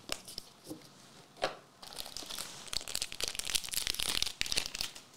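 A One Piece Paramount War booster pack's foil wrapper being torn open and crinkled. A few light clicks of handled cards come first, then a dense crackling run from about two seconds in until near the end.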